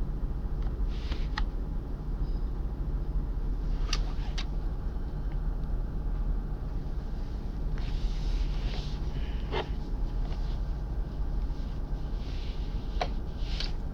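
Steady low background rumble with a few short, sharp clicks and taps scattered through it, about five in all, from handling the device and plugging in its charging cable.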